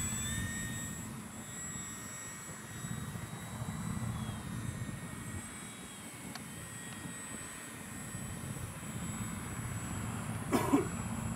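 Electric motor and propeller of a radio-controlled foam P-51D Mustang model plane in flight, a faint whine over a steady low rush that rises and dips in loudness as the plane passes. There is a short knock near the end.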